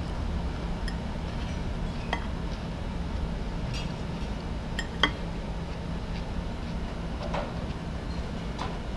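Cutlery clinking against a plate: a handful of short, sharp clinks spread out, the loudest about five seconds in, over a steady low hum.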